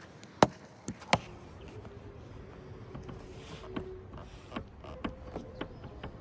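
Knocking and clicking from the panoramic sunroof of a Toyota RAV4 (XA50): three loud, sharp knocks in the first second or so, then lighter clicks about every half second, over a steady low rumble. The knocking is the sunroof fault being shown.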